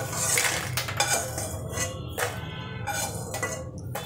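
Steel slotted spoon scraping around a non-stick kadhai and knocking against a steel plate while roasted makhana (fox nuts) are scooped out, giving irregular metallic scrapes and clinks about once a second.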